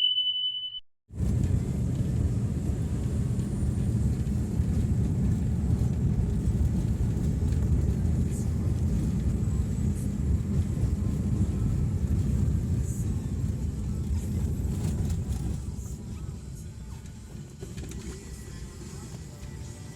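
Steady low rumble of a moving vehicle, starting about a second in after a brief high beep, and easing off somewhat near the end.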